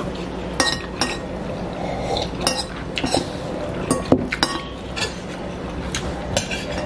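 Metal spoons and forks clinking against bowls as two people eat: a scattering of light, irregular clinks, the sharpest about four seconds in.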